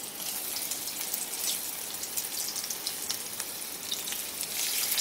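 Hot refined oil sizzling and crackling as stuffed teasel gourds (kakrol) are lowered one at a time into a pot for deep-frying, a little louder near the end as another gourd goes in.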